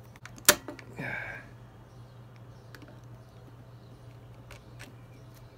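Needle-nose pliers working a shift-cable housing ferrule into a road bike's shifter: one sharp click about half a second in, a brief rasp just after, then a few faint ticks of metal on plastic.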